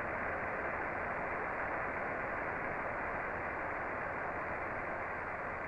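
Steady hiss and static of a radio voice channel, thin and cut off above the voice range, with no words over it.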